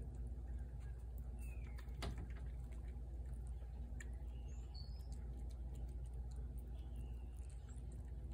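A cat eating from a plate, with faint small clicks of chewing. A few short bird chirps come about a second and a half in, near the middle and again near the end.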